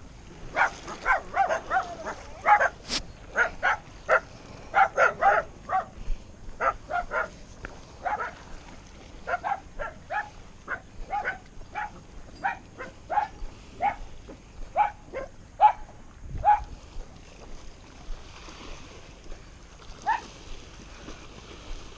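An animal calling over and over in short, sharp calls, two or three a second, which stop about sixteen seconds in, with a couple more near the end.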